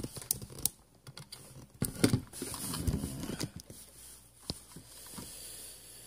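Handling noise from a phone camera being moved and set back in place: a scattered string of sharp clicks and knocks with rustling.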